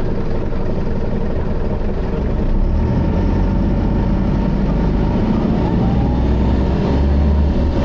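Optare Solo bus with an Allison automatic gearbox running, its engine note growing louder about two and a half seconds in. A faint steady high-pitched whine sits over it.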